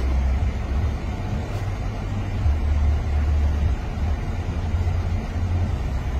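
Low, steady rumble of a car's engine and road noise heard from inside the cabin while the car moves.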